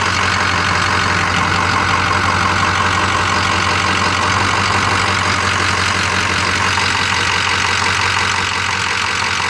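Ford 6.0-liter Powerstroke V8 turbo-diesel idling steadily, heard from beneath the truck, with the rapid clatter of a diesel at idle over a low hum.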